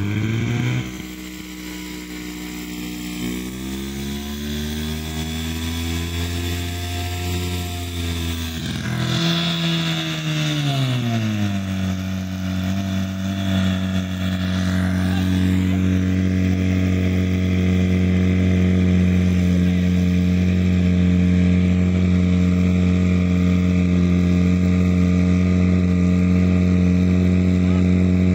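Portable fire pump's engine running under load, its revs wandering up and down for the first ten seconds or so, then settling into a steady, loud run.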